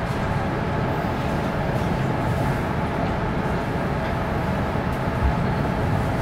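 Steady running noise inside a Taiwan Railways Fu-Hsing passenger coach as the train moves: a continuous rumble from wheels and rails with a faint steady hum, and a light knock about five seconds in.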